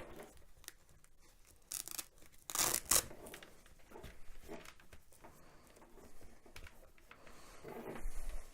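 Handling noise as headset cords are worked and straightened against a helmet: light rustling and rubbing, with two short, loud scraping rasps about two and three seconds in.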